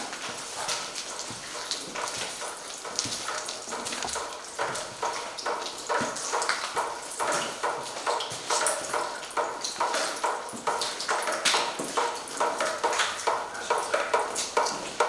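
Footsteps walking over a debris-strewn old floor, an even tread of about two to three steps a second.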